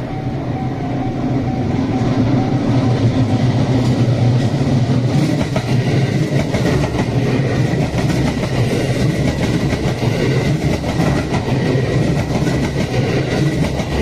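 Series 281 limited-express electric train passing over a level crossing: a steady rumble that swells about two seconds in, with rapid clicking of the wheels over the rail joints.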